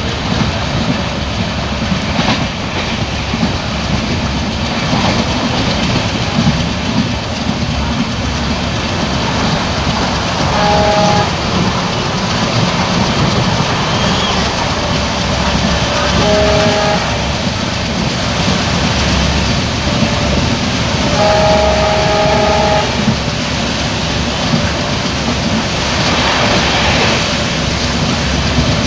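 Passenger train hauled by a WDG3A diesel locomotive running at speed, heard from an open coach window: a steady rumble of wheels on rail with rushing wind. The locomotive horn sounds three times: a short blast about a third of the way in, another just past halfway, and a longer one about three-quarters through.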